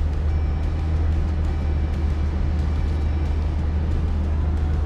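Jeep Gladiator driving on beach sand, heard from inside the cab: a steady low drone of engine and tyres.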